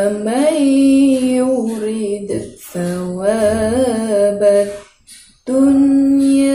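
A woman's solo melodic Quran recitation (tilawah), with long drawn-out notes and ornamented turns in pitch. It comes in three phrases, with short breaks for breath about two and a half and five seconds in.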